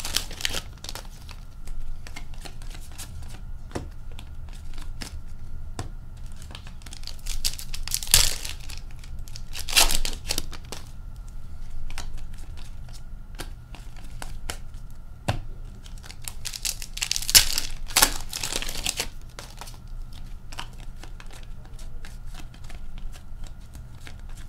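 Hockey card pack wrappers being torn open and crinkled by hand, with cards rustled between the tears; the loudest tearing comes about 8 and 10 seconds in and again around 17 to 19 seconds.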